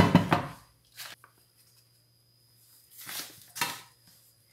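A ceramic bowl of risen dough is moved on a granite countertop with a scrape at the start and a light knock about a second in. About three seconds in, flour is tipped onto the counter in two short soft rustles.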